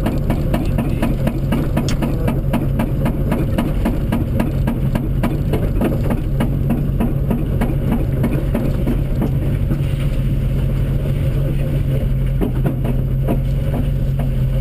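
Rally car engine running at a steady pitch, heard from inside the cabin, with a dense patter of knocks and rattles from stones and the rough road surface that thins out after about ten seconds.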